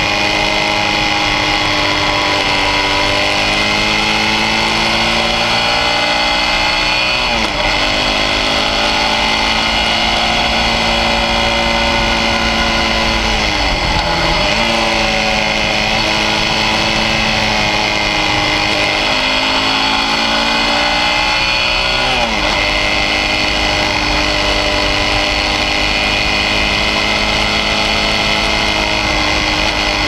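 Suzuki V-Strom 650's V-twin engine under way through a series of bends. Its pitch climbs as it pulls and drops sharply three times, about 7, 14 and 22 seconds in, over a steady rush of wind noise.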